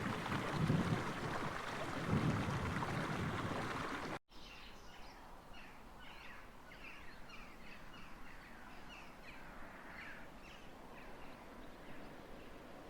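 A loud, steady rushing noise with a couple of low thuds. About four seconds in it breaks off, and a small songbird is heard singing a rapid run of short, high, downward-sliding chirps over quiet outdoor ambience.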